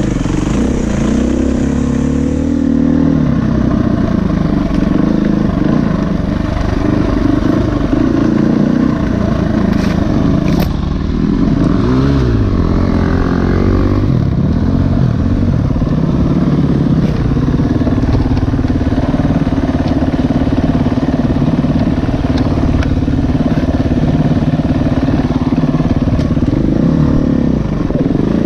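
A 350 dirt bike's engine running under the rider on rough single track, its pitch rising and falling around twelve seconds in as the throttle is worked, then holding steadier. A few sharp knocks a little before that.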